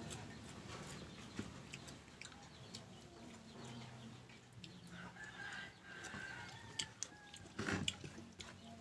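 Chickens clucking in the background. Scattered sharp clicks, and a short noisy burst a little before the end that is the loudest sound.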